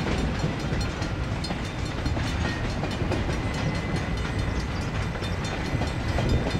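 Freight train tank cars rolling past on steel rails: a steady low rumble with many repeated clicks and knocks from the wheels.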